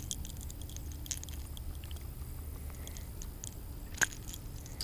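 Small clicks and rustles of a hooked largemouth bass being handled and a crankbait's treble hooks being worked free, with a sharper click about four seconds in, over a steady low rumble.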